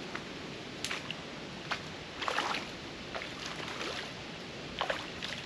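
Several short splashes and sloshes of water, scattered irregularly, over a steady outdoor hiss.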